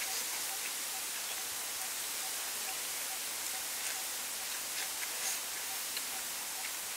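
Faint crisp crunches, a few per second at most, of crispy battered fried chicken legs being bitten and chewed, over a steady high hiss with a faint chirp repeating about three times a second.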